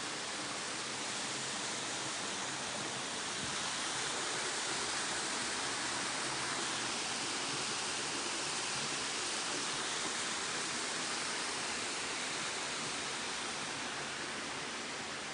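Waterfall running, a steady even rush of falling water.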